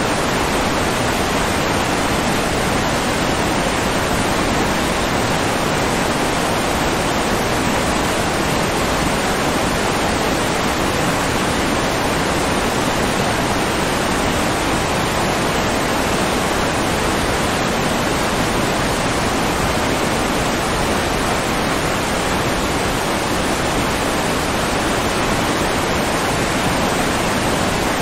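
Steady rushing water, a continuous even roar like a waterfall or fast stream, with no change in level.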